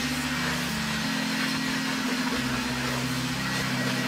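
Carpet extractor running, its wand being pulled across car floor carpet with a steady rushing suction hiss. Beneath it, low sustained background-music notes step to a new pitch every second or so.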